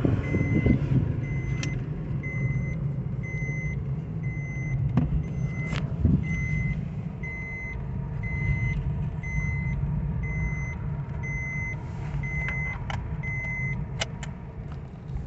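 Maruti Suzuki Baleno's seat-belt reminder chime beeping, short high beeps repeating evenly a little faster than one a second over the low rumble of the engine and tyres inside the moving car. The beeping stops about a second before the end, with a couple of clicks, as the seat belt is fastened.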